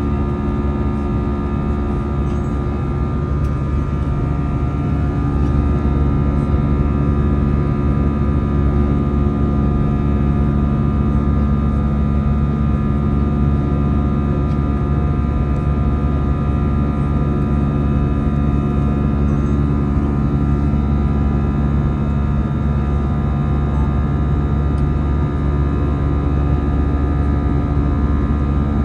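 Airbus A320's jet engines heard from inside the cabin at climb power after takeoff: a steady drone with a hum of several steady tones that holds level throughout.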